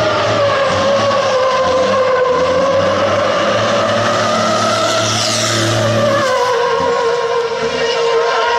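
Racing truck drifting with its rear tyres squealing continuously in a wavering tone, the engine running underneath.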